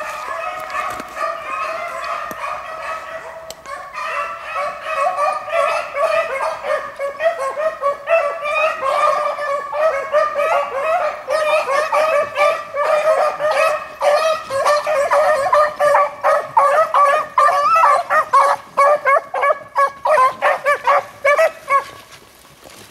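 A pack of beagles baying while running a rabbit's track. Long drawn-out bays come first, then a fast, overlapping chop of bays that grows louder before cutting off suddenly near the end.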